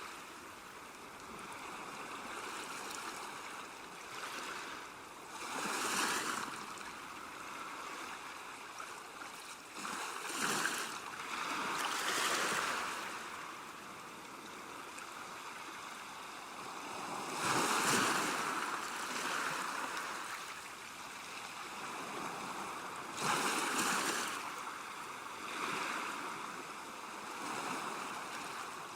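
Small waves breaking and washing up on a beach, each surge swelling and fading every few seconds over a steady background wash.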